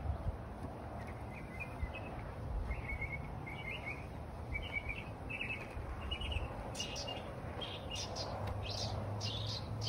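Northern mockingbird calling: a run of short repeated chirps, turning into louder, sharper calls over the last few seconds.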